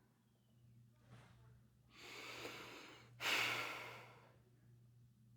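Teenage girl breathing: a faint short breath, a longer inhale, then a sudden louder exhale sighing out about three seconds in.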